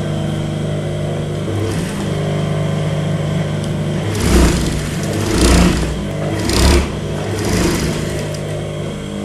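Industrial sewing machine running: a steady motor hum, with several short runs of stitching about halfway through as a seam is sewn through jute fabric.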